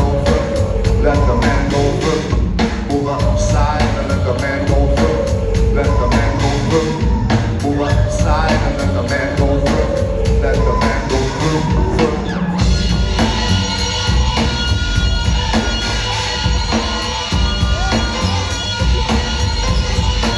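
Live rock band playing a song: a heavy, thick bass line and a driving drum kit. About twelve seconds in, a bright sustained layer joins on top.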